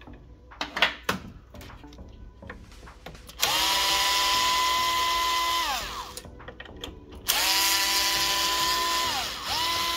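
Cordless drill-driver backing out screws from a coffee machine's plastic housing: a few light handling knocks, then the motor whines at a steady pitch in two runs of about two seconds each, each winding down with a falling pitch as the trigger is let go. A third run starts near the end.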